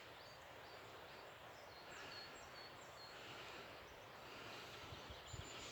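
Quiet woodland ambience: a faint steady hiss with small high bird chirps repeating every half second or so, and a couple of soft thumps near the end.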